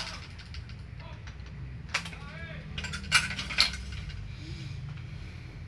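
Badminton racket being strung on a stringing machine: a few sharp metallic clicks of the string clamps and tension head in the second half, and a brief squeaking rub of string drawn through the frame. A steady low hum runs underneath.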